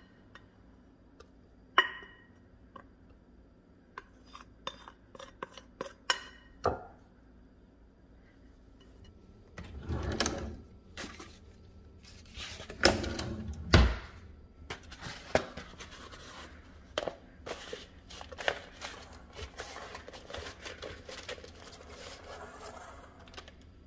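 A plastic rice paddle taps and scrapes sticky dough off into a glass bowl. About ten seconds in, a kitchen drawer slides open and shuts with heavy thunks. Then a beeswax food wrap crinkles as it is pressed down over the bowl.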